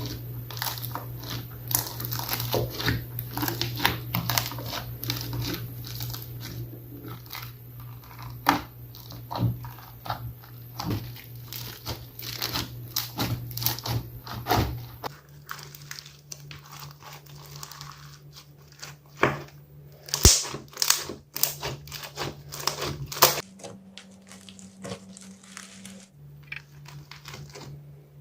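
Slime being mixed and squeezed by hand: a dense, irregular run of sticky clicks and crackling pops, over a low hum that shifts abruptly about halfway through and again near the end.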